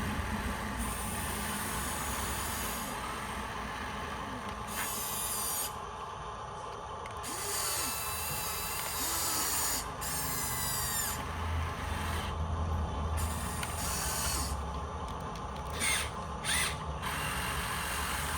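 Small electric motors and plastic gearboxes of radio-controlled construction models whirring in short runs that start and stop, with whines that rise and fall in pitch, and two brief bursts near the end.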